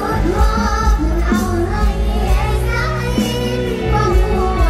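Mor lam song with band accompaniment: a high singing voice with a bending, wavering melody over a steady bass and drum beat.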